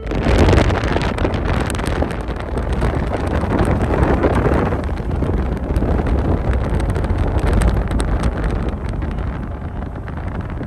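Wind buffeting the microphone in a loud, low rumble, with the engine of a small aircraft flying low overhead droning beneath it.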